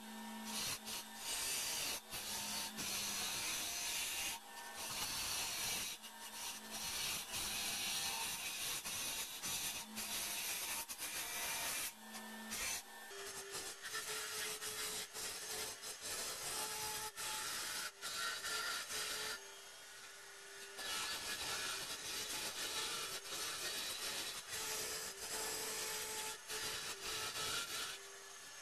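A turning tool cutting inside a spinning pear wood vase on a wood lathe: a continuous scraping hiss of steel on wood, broken by many short pauses as the tool is lifted, over the lathe's steady hum.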